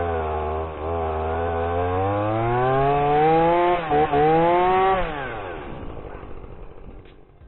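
Stihl MS 170 two-stroke chainsaw idling, then revved up and held at high speed with a couple of brief dips. The throttle is then released, and the engine note falls and fades away.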